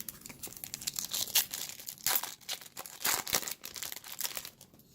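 Plastic wrapper of a baseball card pack crinkling and tearing as it is ripped open by hand, with a dense run of irregular crackles that thins out near the end.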